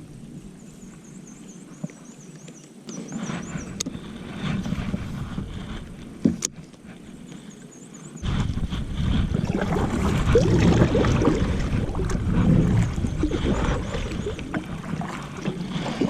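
Kayak being paddled on a lake, with paddle strokes and water sloshing against the hull. It is quieter at first and gets louder from about eight seconds in.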